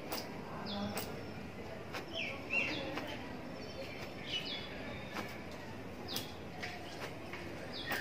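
A towel slapping and flicking through wet hair in short, irregular strokes, the loudest about two and a half seconds in. Birds chirp in the background throughout.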